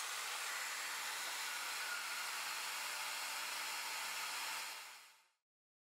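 A steady, even hiss like rushing air, which fades out about five seconds in.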